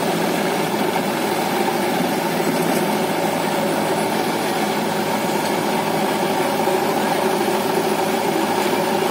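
Diesel engines of a backhoe loader and a farm tractor idling together: a steady, even drone with no revving.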